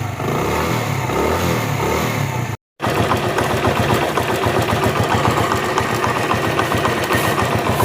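CD 70 motorcycle's 70cc single-cylinder four-stroke engine idling steadily with an even beat, cutting out briefly about two and a half seconds in. A new timing chain kit has been fitted, and the extra noise the engine used to make is gone.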